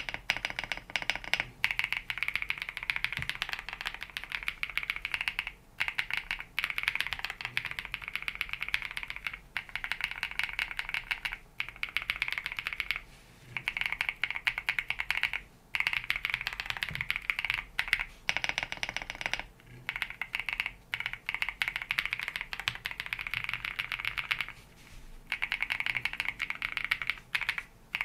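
Fast typing on a mechanical keyboard fitted with Sarokeys Strawberry Wine linear switches: a dense stream of keystroke clacks in runs, broken by several brief pauses.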